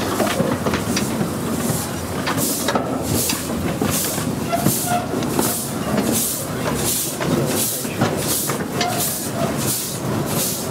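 15-inch gauge miniature steam locomotive working ahead of the carriage, chuffing in hissing beats of steam about two a second, which grow stronger a couple of seconds in. Carriage wheels click over the rail joints beneath a steady rumble.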